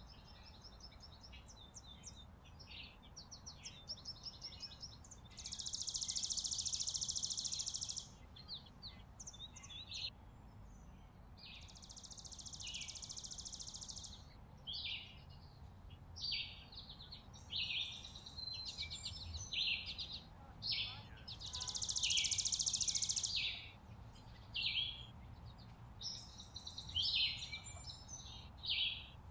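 Small songbirds at a seed feeder calling: many short, high chirps, with three longer rapid trills lasting two to three seconds each, over a low steady rumble.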